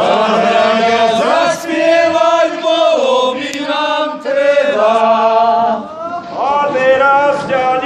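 Group of voices singing a slow Slovak folk lament for the mock burial of the double bass. The notes are drawn out in sung phrases, broken by short breaths.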